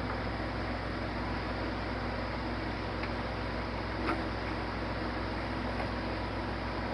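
Steady low machine hum with an even airy hiss, unchanging throughout, with a faint tap about four seconds in.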